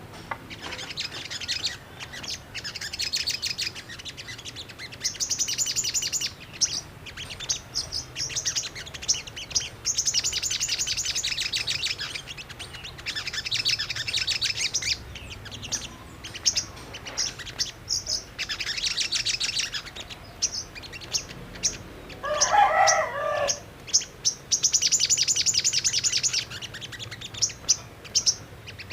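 Sogok ontong (crimson sunbird) singing: repeated bursts of fast, high-pitched chattering song, each a second or two long, with short gaps between them. About two-thirds of the way through, a lower, pulsing call from another bird is briefly the loudest sound.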